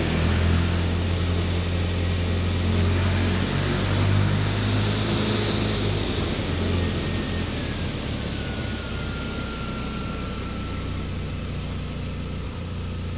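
Car running on a chassis dynamometer, its driven wheel turning the rollers: a steady hum of engine, tyre and rollers that weakens after about seven seconds as the wheel slows. A faint falling whine runs under it, with no loud brake squeal from the pads, which have been treated with anti-squeal compound.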